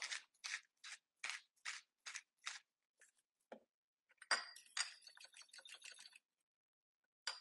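Salt grinder twisted over a bowl, about seven short, dry grinding crunches at roughly two and a half a second. About four seconds in, a faint scraping and clinking of a fork against the bowl as the egg mixture is stirred.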